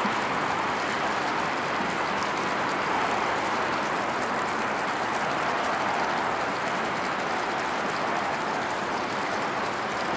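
Steady city ambience: an even hiss of distant traffic, unchanging throughout.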